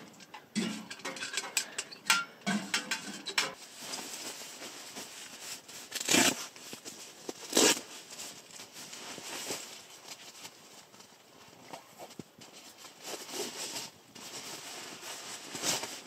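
Quick metallic clicks and knocks of a titanium tent stove and its pipe being handled. Then nylon fabric rustling as a stuff sack is handled, with two louder swishes about six and seven and a half seconds in.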